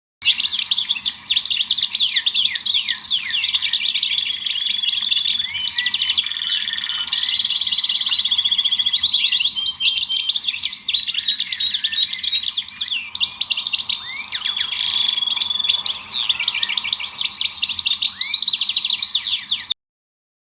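Many small songbirds chirping and singing at once, a dense tangle of rapid overlapping chirps and trills that cuts off abruptly near the end.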